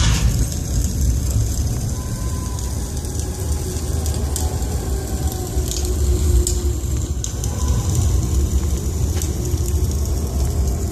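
Tour ride car rolling on its rail through a stone tunnel: a steady low rumble with a few sharp clicks.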